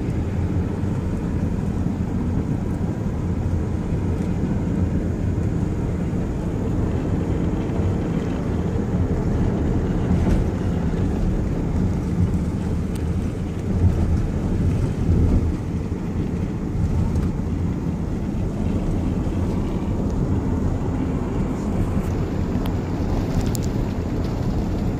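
Steady low rumble of road and engine noise from a moving car, heard from inside the car, with a few slightly louder bumps partway through.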